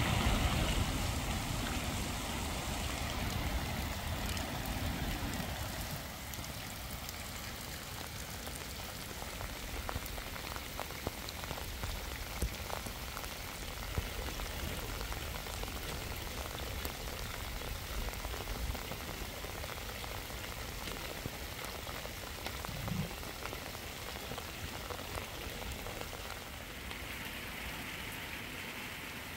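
Rain falling steadily, with scattered taps of drops. A low rumble at the start fades away over the first few seconds.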